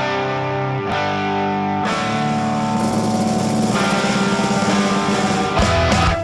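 Background rock music led by guitar: held chords changing about once a second, the sound filling out from about two seconds in.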